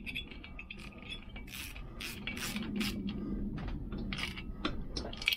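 Socket ratchet clicking in a series of short, irregular rasping strokes as the cylinder head nuts are nipped up.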